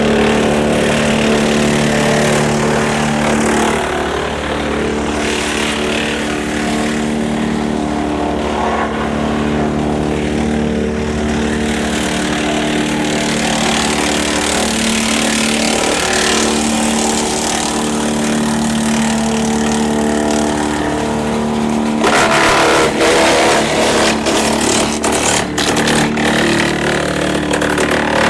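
Tractor-driven Woodland Mills TF810 PTO wood chipper running steadily with its engine drone. About 22 seconds in the sound turns rough, with rapid cracks and crunching as branches are fed through and chipped.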